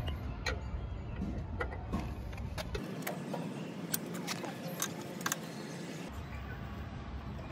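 Light metallic clicks and ticks of a hex key seating in and turning the bolts of a motorcycle side-case mounting bracket, scattered irregularly, over a low background rumble.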